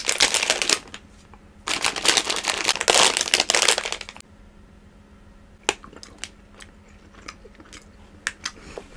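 Crinkling of plastic and foil candy packaging, a Haribo Goldbears gummy-bear bag, as it is handled and opened: a brief crackle at the start, a longer spell of crinkling about two seconds in, then a few faint ticks.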